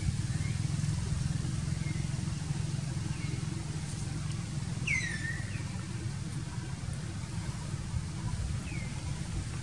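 Outdoor background noise: a steady low rumble, with a few short, high chirps that fall in pitch. The loudest chirp comes about halfway through.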